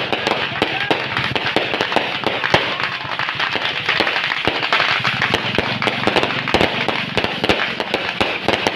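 Firecrackers and fireworks going off in a dense, continuous crackle of rapid pops, with a few louder bangs standing out.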